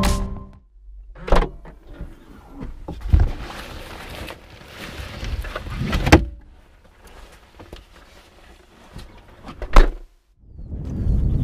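Camera backpack and gear being lifted out of a car's open boot: rustling and handling noise with several sharp knocks, the loudest near the end. Tail of background music fading out at the very start.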